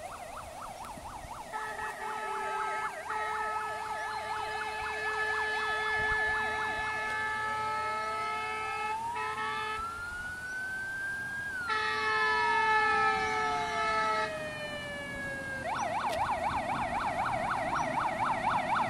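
Fire engine siren approaching: a fast yelp, then a slow wail that rises, holds and falls over about eight seconds, then the fast yelp again. Two long, steady horn blasts sound over it, the first early on and the second midway.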